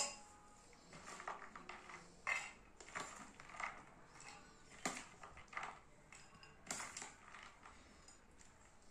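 Metal spoon clinking and scraping against a stainless-steel bowl as a moist sprout salad is spooned into it. The light clinks come irregularly, about a second apart, some with a short ring.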